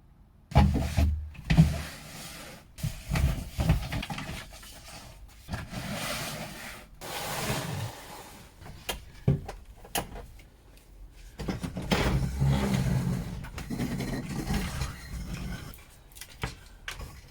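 Irregular knocking, scraping and rustling of things being handled and shifted about, in bursts with short pauses, starting about half a second in.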